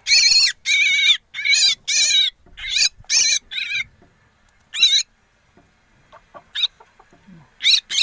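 Myna nestling giving harsh, repeated begging calls, about two a second, while gaping to be hand-fed. The calls break off a little before halfway, leaving a quiet stretch of about three seconds with only one or two calls in it, and resume just before the end.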